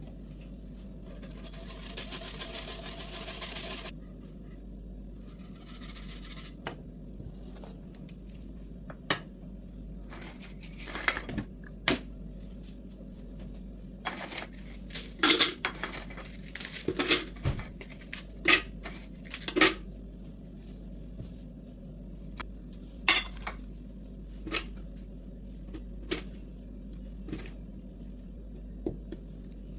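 Plain tea biscuits being snapped and dropped into a plastic blender jug: a run of sharp clicks and cracks, thickest in the middle. A soft rustling near the start, with a steady low hum underneath.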